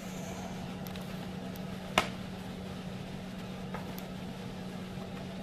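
A steady low hum with one sharp click about two seconds in and a few faint ticks.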